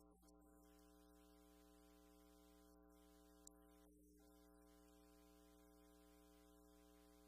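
Near silence: a faint, steady electrical hum made of several constant tones, with one faint click about three and a half seconds in.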